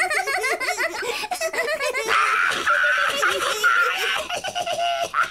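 Cartoon children's voices laughing hard and continuously, with a cartoon parrot's voice laughing along in the later part.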